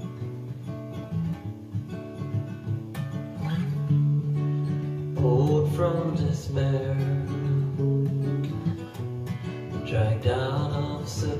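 Acoustic guitar strummed in a steady song accompaniment, with a man's singing voice coming in about five seconds in and again near the end.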